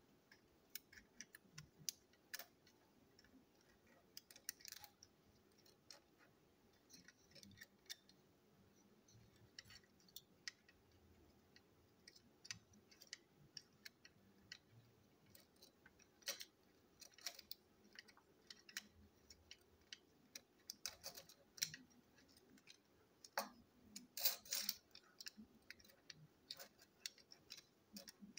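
Faint, irregular clicks and taps of small plastic toy-train parts and metal screws being handled and set down on a tabletop during disassembly, with a short cluster of louder clicks near the end.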